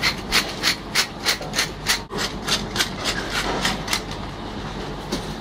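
Hand-twisted seasoning mill grinding, a regular run of short rasping strokes about three a second that stops about four seconds in.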